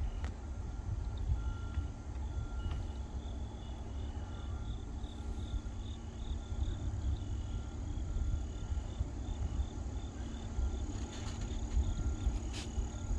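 Insects chirping in a regular pulsing pattern over a steady low rumble.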